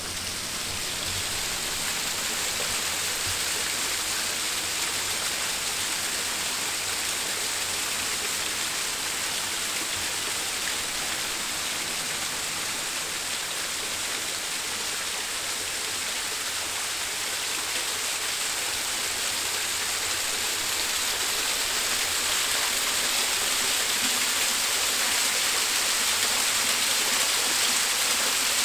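Rushing water of a stream or river, a steady even rush that grows a little louder near the end.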